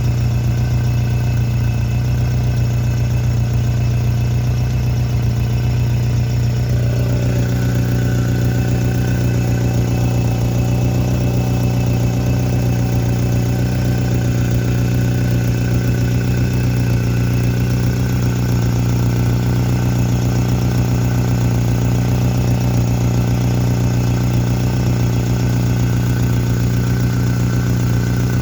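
Car engine idling steadily with a metallic clatter from the engine, which the owner puts down to a leaking exhaust system. The engine note shifts slightly about seven seconds in.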